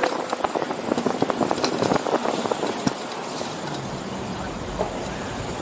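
Street noise heard from a moving bicycle: a steady rush of wind and road noise with traffic in the background, and a run of quick clicks and knocks in the first few seconds.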